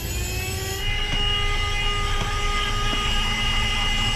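Small 12-volt handheld car vacuum, plugged into the cigarette lighter, running. Its motor whine rises in pitch for about the first second, then holds steady.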